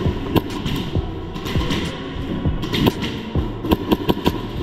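Airsoft guns firing: scattered sharp shots, then a quicker run of shots near the end, over a steady hum.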